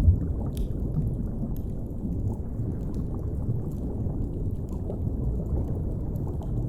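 Low, steady underwater rumble of the deep sea, mixed with faint crackles from a fire. A soft low thump comes right at the start.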